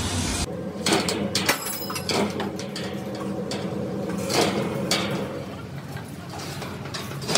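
Irregular metal knocks and clanks on steel with short ringing, over a steady low machine hum, as the tank's steel is worked.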